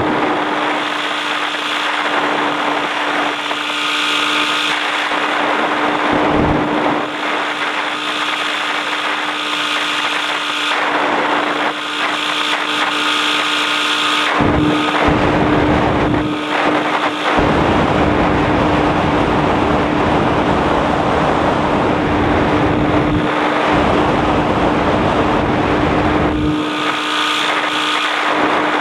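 Light aircraft's engine and propeller droning at a steady pitch in flight, with wind buffeting the microphone in uneven gusts.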